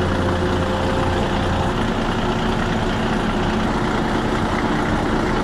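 Heavy diesel engine of logging equipment running steadily. Its lowest hum eases a little under two seconds in.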